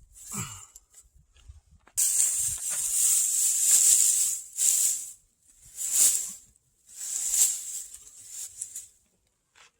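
Hissing noise that starts suddenly about two seconds in, then comes back in two shorter swells before dying away.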